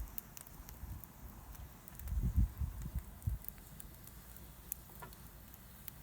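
Open wood fire crackling faintly, with scattered sharp pops, and a burst of low thumping rumble about two seconds in.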